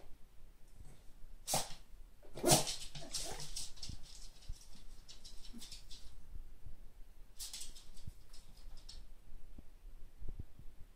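Bengal cats vocalising at each other in a territorial standoff: a few short, harsh calls, the loudest about two and a half seconds in, with another cluster later.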